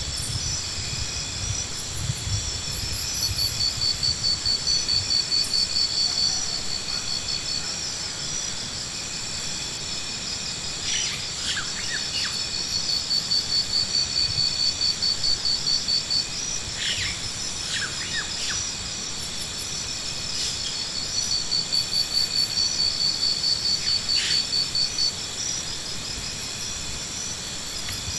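Insects trilling steadily in high, rapidly pulsing song that swells louder every several seconds, with a few short bird chirps.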